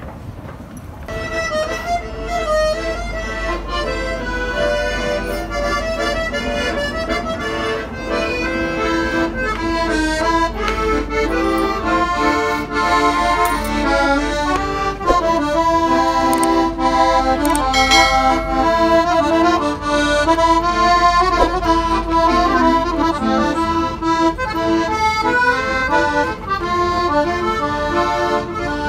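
Accordion playing a tune in a metro car, over the train's low rumble, which drops away near the end.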